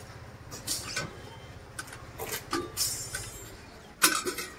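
A few short clinks and clatters of steel serving plates and utensils over a steady low hum, the loudest clatter about four seconds in.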